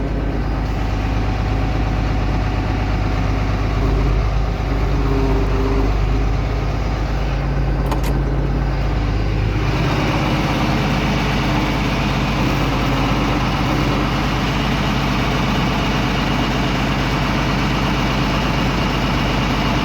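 Farm tractor engine running steadily. About ten seconds in it speeds up and stays at the higher speed, as when the tractor is throttled up and manoeuvred.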